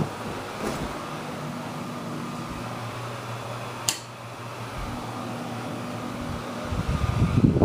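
Ceiling fan running, a steady whoosh of moving air with a faint motor hum, broken by a single sharp click about four seconds in. Near the end a louder rush of air builds up.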